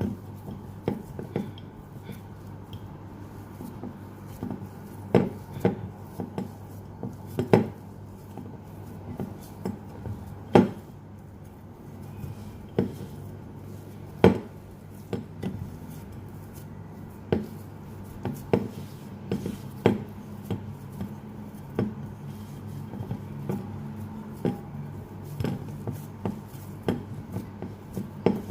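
A utensil clinking and knocking against a mixing bowl while cookie dough with chocolate chips is stirred: irregular sharp taps, about one a second, over a steady low hum.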